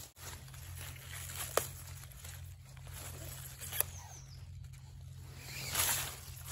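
Wild garlic (ramsons) leaves rustling as they are brushed and handled, with two sharp clicks about two seconds apart and a louder rustle near the end.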